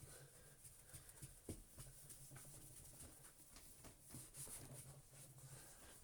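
Near silence: faint room tone with a low hum and a few soft clicks.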